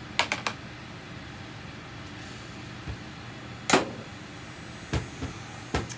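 Metal carburetor parts clicking and knocking as they are handled and set down on the workbench. There are three quick clicks right at the start, a louder knock a little past the middle and two more near the end, over a steady low hum.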